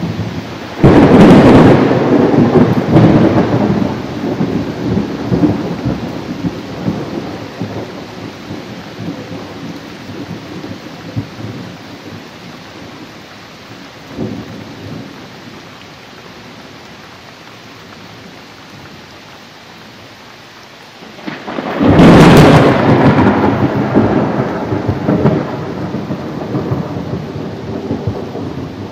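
Thunderstorm: two loud claps of thunder, one about a second in and another some twenty seconds later, each rolling on for several seconds, over steady rain.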